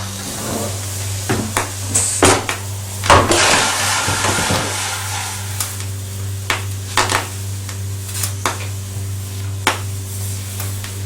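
Coffee machine running with a steady low hum, with scattered clicks and knocks and a short hissing, gurgling burst about three seconds in.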